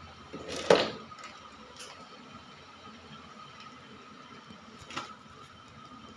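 Handling noises while taking a part out of a fridge for cleaning: a short scrape ending in a loud knock about a second in, and a smaller click near five seconds, over a faint steady high tone.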